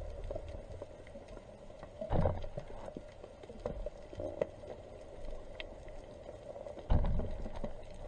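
Underwater sound through an action camera's housing: a muffled water rumble with a faint steady hum and scattered small clicks and crackles, and two dull thumps, about two seconds in and near the end.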